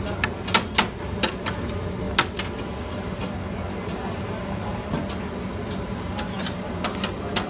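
Metal spatula clacking and scraping against a large flat metal griddle as cubes of meat are pushed together, with quick sharp clicks in the first two seconds and a few more near the end, over a steady background hum.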